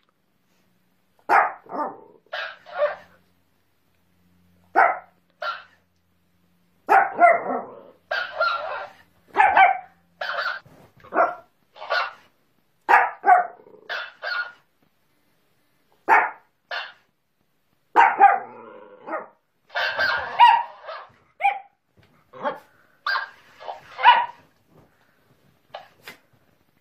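A small dog barking repeatedly in short, sharp barks, in clusters with short silent pauses between them, facing a talking hamster plush toy that repeats the barks back.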